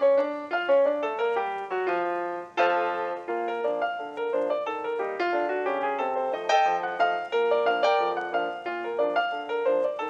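Background piano music: a quick, busy run of notes and chords, with a loud chord struck about two and a half seconds in.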